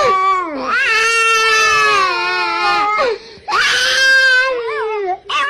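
Dog howling and crying in long wailing cries, each held one to two seconds and dropping in pitch at the end, with a short break between them.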